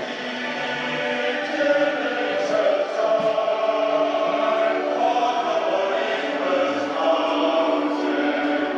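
Background music: choral singing in long held notes.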